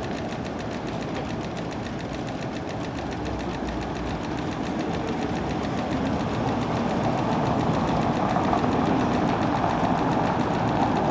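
Tatra tram rolling slowly toward the stop, a steady running noise of motors and wheels on rails that grows louder from about halfway through as it comes closer.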